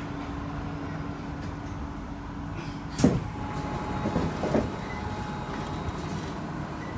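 Train passenger doors opening at a station stop: one sudden loud clunk about three seconds in as the doors release and slide open, then a few smaller knocks over the next second and a half, over the train's steady hum.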